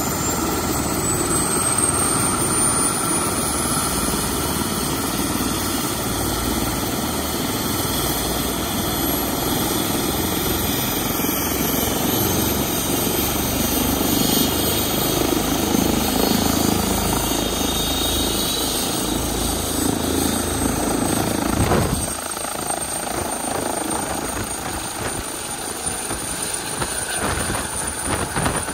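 Airbus H135 T3 twin-turbine helicopter running on the ground with its rotor turning, its turbine whine rising slowly in pitch as it spools up. About three quarters of the way through the sound changes abruptly and the low rumble drops away, and near the end it lifts off.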